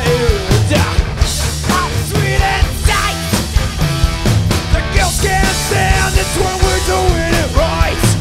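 A rock band playing loud and live, with electric guitar and drums.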